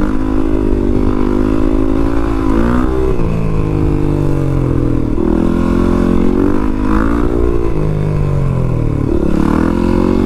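2015 Yamaha WR450F supermoto's single-cylinder four-stroke engine running, its note climbing and dropping several times, with the sharpest drops about five and nine seconds in.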